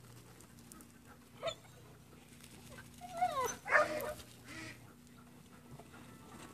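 Herding dog giving a short yelp about a second and a half in, then a louder run of yelping whines that slide up and down in pitch about three to four seconds in.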